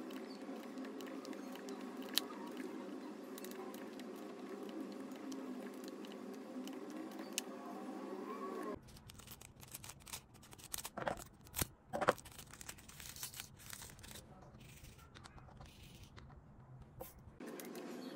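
A small plastic zip-lock bag of diamond-painting drills is handled and opened, crinkling and rustling with a few sharp crackles, the loudest a little past the middle. Before it comes a steady droning background.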